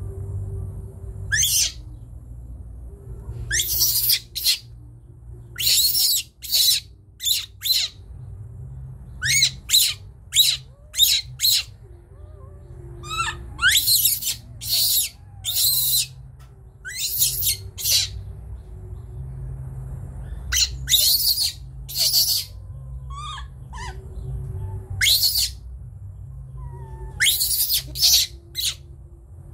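Baby macaque screaming in fright: short, high-pitched shrieks that come in clusters every second or two, the sign of a frightened young monkey.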